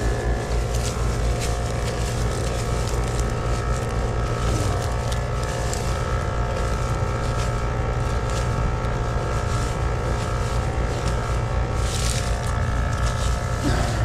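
Residential air-conditioning condenser running steadily, its compressor hum and condenser fan both going, running again on a newly fitted dual run capacitor. Scattered light clicks and scrapes sound over it, one louder about twelve seconds in.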